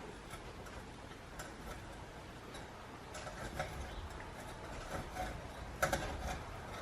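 Faint, scattered light clicks and taps over a low rumble, with one sharper knock near the end.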